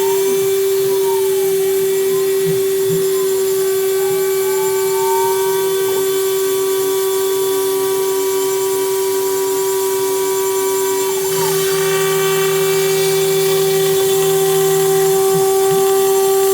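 CNC router spindle running at 24,000 rpm with a 1/4-inch Onsrud end mill, milling polycarbonate: a steady high whine. Gliding tones rise and fall over it as the machine traces curves in its toolpath.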